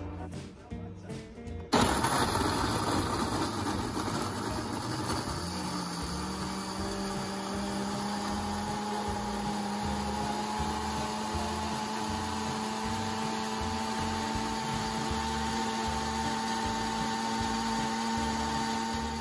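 Countertop blender with a glass jar switching on suddenly about two seconds in and running steadily, blending plums, banana and condensed milk into a smoothie; its motor tone steps up a little in pitch about six seconds in. Background music with a beat plays underneath.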